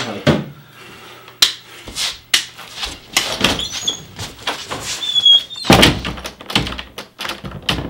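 A run of footsteps and knocking thumps, with a short squeak about five seconds in and the heaviest thuds just after it, as someone goes out through a wooden door.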